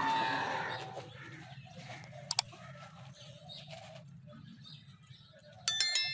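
Desi hens foraging, with faint soft calls over a low steady hum. A short, sharp high-pitched call comes near the end.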